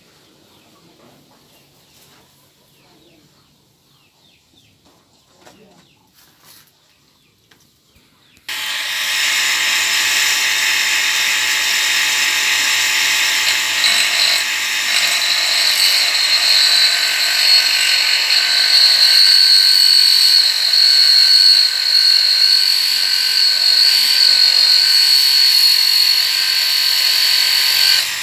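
Faint clicks and rustling, then about eight seconds in an electric motor with a grinding wheel switches on abruptly and runs steadily with a high whine while something is held against the wheel and ground.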